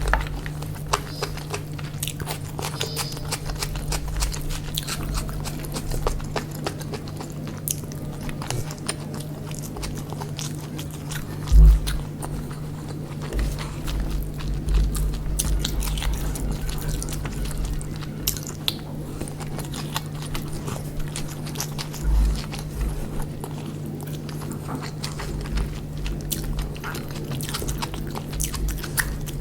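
Close-miked eating of chicken biryani: steady chewing and biting with many small wet clicks and occasional soft thumps, over a steady low hum.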